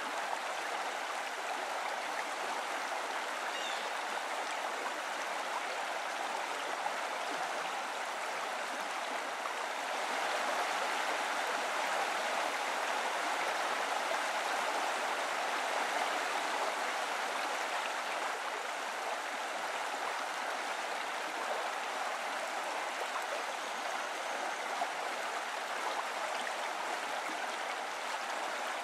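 Steady rushing of flowing water, a little louder for several seconds around the middle.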